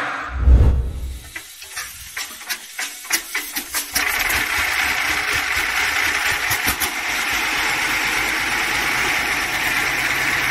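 A deep thump about half a second in, then a V-55 38.8-litre V12 tank diesel engine starting: irregular firing pops for a few seconds as it catches, settling into steady running from about four seconds in.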